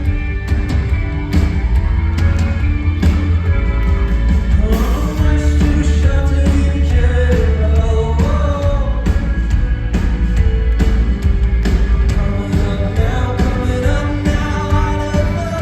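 Live rock-pop band playing with a male lead vocal singing the melody over regular drum hits and heavy bass.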